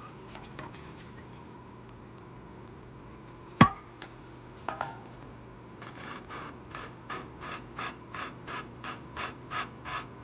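Valve lapping on a Briggs & Stratton 12 hp I/C engine: a suction-cup lapping tool turns the intake valve back and forth against its seat, and the grinding compound rasps rhythmically at about three strokes a second from about six seconds in. Before that come a few light clicks and one sharp knock as the tool is fitted.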